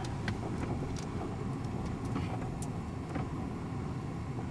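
Car driving, heard from inside the cabin: a steady low rumble of engine and tyres, with a few faint clicks.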